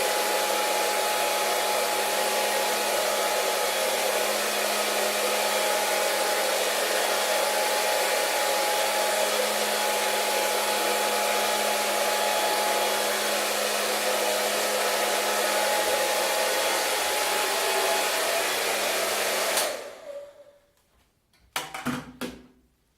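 Hair dryer running steadily: a loud rushing blow with a motor hum and a thin whine, which cuts off abruptly near the end and dies away quickly. A few short knocks follow just after.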